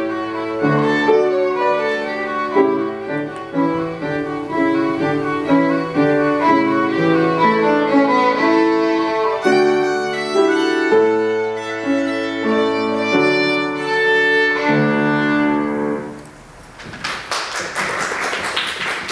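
Solo violin played with piano accompaniment. The piece ends about 16 seconds in, and applause follows.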